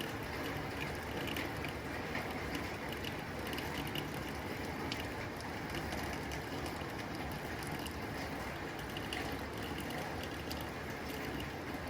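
Rain falling steadily on a tin roof: many small, sharp ticks of drops striking the metal over an even, constant rush.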